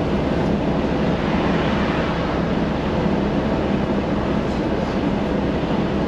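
Steady rumble and hum of a moving vehicle.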